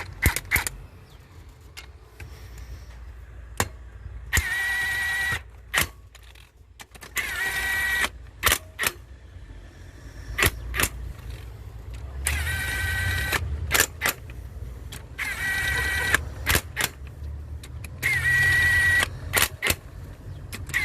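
Hyundai Terracan's engine running low and steady. About every three seconds a loud high-pitched squeal sounds for about a second, sliding up at the start and then holding steady, and sharp clicks come in between.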